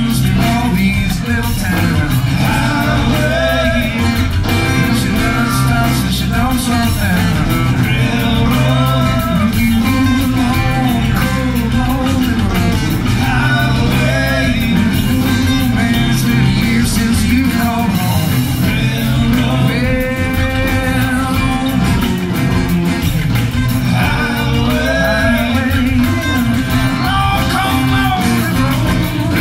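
Live Americana band playing at full volume: strummed acoustic guitars, electric bass and drums with organ, and a voice singing over them.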